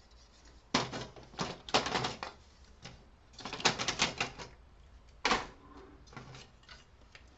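Plastic and metal printer parts clicking, knocking and rattling as they are handled during disassembly. There are single clicks, a quick rattling run in the middle, and one louder knock about five seconds in.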